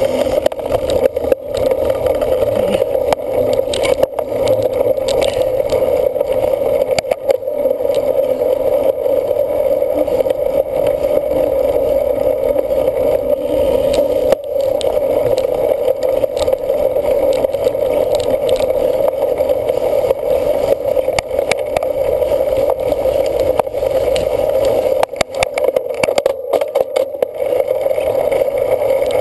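Steady rushing noise of a bicycle being ridden hard in a cyclocross race, wind on the microphone and tyre rumble, with scattered knocks and rattles over rough ground.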